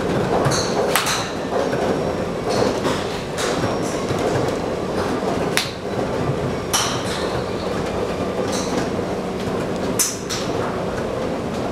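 Golf clubs striking balls at a busy driving range: about ten sharp cracks at irregular intervals, a second or two apart, over a steady background rumble.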